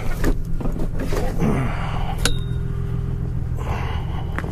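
Vehicle engine idling, a steady low hum, with a sharp click that rings briefly about two seconds in.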